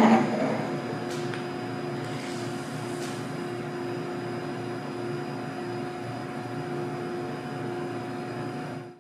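Steady mechanical hum of room equipment, with a short louder noise at the very start and a couple of faint clicks about a second in; it fades out abruptly near the end.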